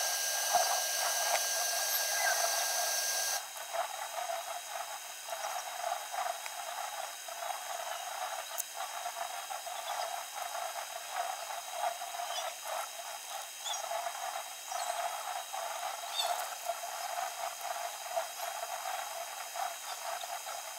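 Steady background hiss with faint scattered ticks. A few faint high steady tones cut off abruptly about three and a half seconds in, and the hiss drops a little there.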